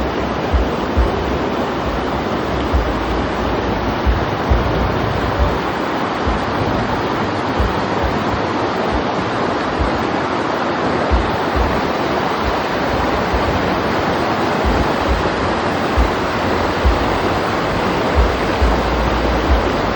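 Storm wind blowing hard, a steady loud rush, with gusts thumping on the microphone again and again.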